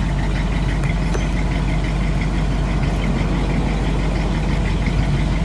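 1963 Cadillac Series 62's 390 V8 idling steadily, heard from behind the car at the exhaust, with an even, low exhaust note that sounds like a boat.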